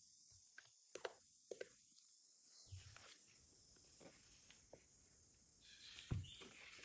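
Mini spray fan running with a faint steady hiss, with a few light clicks and two soft thumps of the fan being handled.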